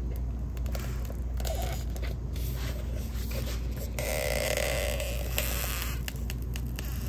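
Hardened epoxy scraping and creaking against the inside of a plastic mixing cup as a wooden stir stick pries it loose. Small clicks run throughout, and a rough crackling stretch of nearly two seconds starts about four seconds in. A steady low hum runs underneath.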